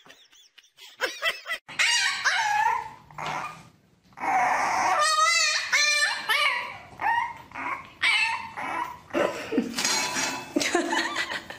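Dog whining and yipping in a string of short, high-pitched cries, one of them wavering rapidly about five seconds in.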